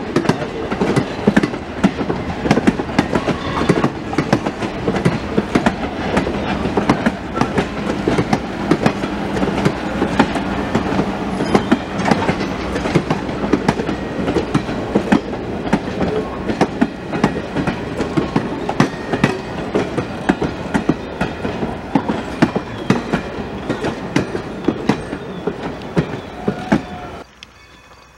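Railroad passenger coaches rolling past, their steel wheels clicking rapidly and unevenly over rail joints above a steady rumble. The sound cuts off suddenly near the end.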